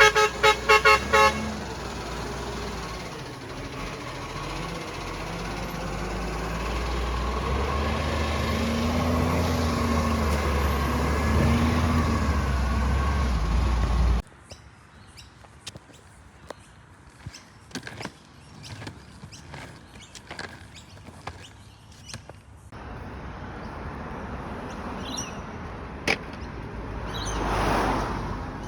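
Garbage truck engine running with a low steady rumble that grows louder, after a quick run of horn toots at the start. It cuts off suddenly about halfway through, leaving quieter sound with scattered clicks and a swell of noise near the end.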